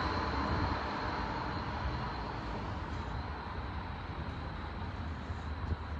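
Road traffic noise on a street, loudest at the start and slowly fading away, over a steady low rumble.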